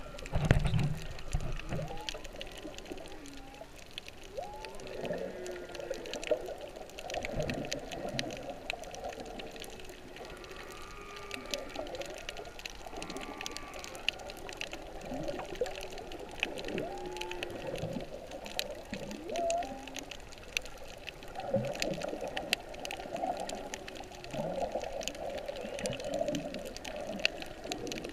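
Humpback whale song recorded underwater: a steady run of calls that slide up and down in pitch, over a constant crackle of clicks. The water splashes loudly right at the start as the camera goes under.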